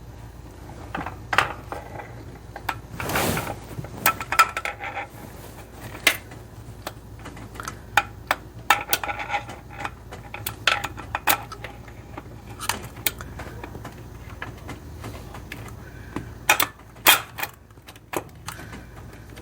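Metal parts and hand tools clinking and knocking as a distributor is worked back down into a Chevy Vortec 350 engine: scattered sharp clicks and clanks, a few with a short metallic ring.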